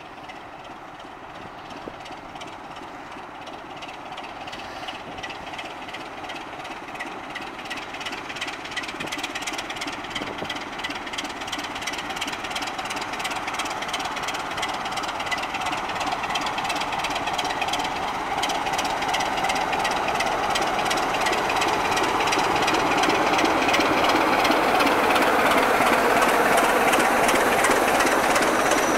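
British Rail Class 25 diesel locomotive D7535, its Sulzer six-cylinder engine beating rhythmically as it approaches hauling coaches, growing steadily louder until it draws alongside.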